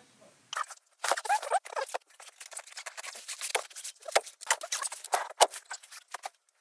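Fabric-upholstered camper-van cushion panels being lifted and shifted by hand: quick, irregular rustling and scraping with a few sharp knocks, starting about half a second in.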